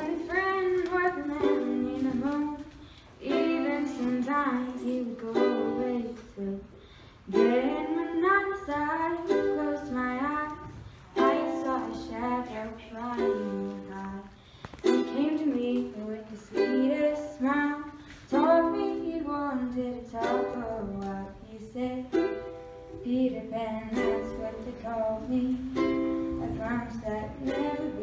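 A girl singing a slow song in phrases while playing a ukulele.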